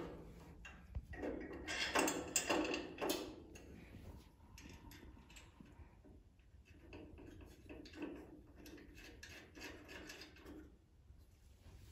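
Handling noise as a propane tank hanger is fitted to a griddle cart's steel frame and its long thumb screw is turned in by hand: a cluster of knocks and scrapes for about two seconds, then softer, irregular rubbing and tapping.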